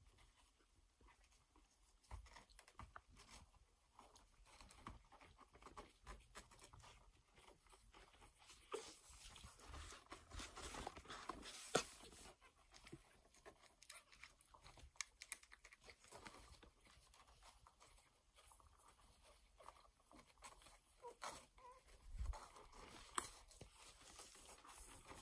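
Near silence with faint rustling and scattered soft clicks and taps as a dog shifts about on blankets among sleeping puppies. The rustling is busiest in the middle, with a few louder taps near the end.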